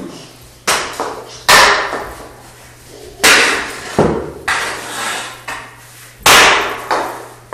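A toddler's hockey stick smacking and clattering on a bare concrete floor, about seven sharp knocks at irregular intervals, each ringing briefly off the hard bare walls.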